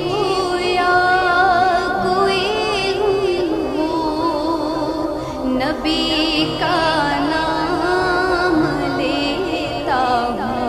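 Background music: a voice singing long, wavering, ornamented melodic lines over a steady held drone, in the style of an Urdu naat (devotional song).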